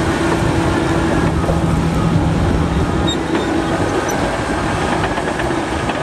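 Large crawler bulldozer working under load, pushing dirt with its blade: a steady diesel engine drone with the clatter of its steel tracks.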